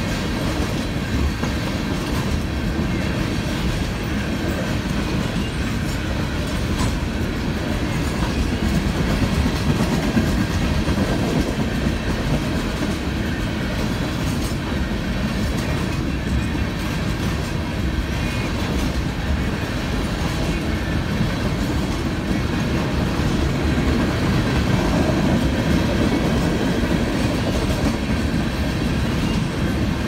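A freight train's loaded oil tank cars rolling past, steel wheels on the rails making a steady rumble with scattered clicks.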